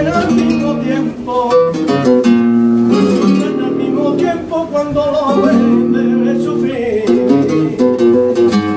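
Flamenco performance: a Spanish acoustic guitar plucking and strumming, with a man's voice singing drawn-out wordless notes over it.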